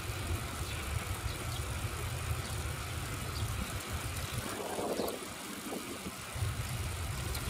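Wind buffeting the microphone of a camera carried on a moving bicycle: a steady low rumble that eases off for about two seconds midway.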